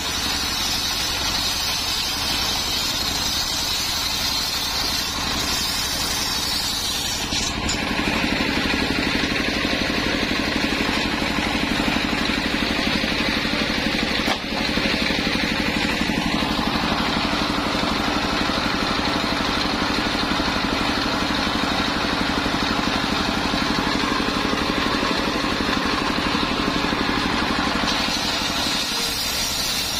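Engine of a modified car driving a homemade circular saw, running steadily on coconut-trunk wood. About a quarter of the way in the sound grows louder and fuller, and it eases back near the end.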